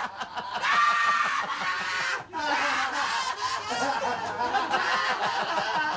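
Several men laughing and snickering, without a break.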